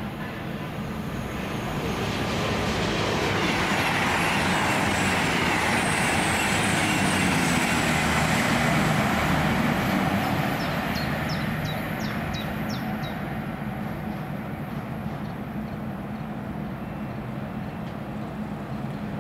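A train passing along the line: its noise builds over a couple of seconds, holds for several seconds, then fades to a steady lower rumble. A few short bird chirps come as it fades.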